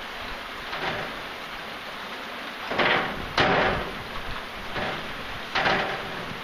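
Steady rain falling, with about five louder bursts over the even hiss, the loudest starting sharply about three and a half seconds in.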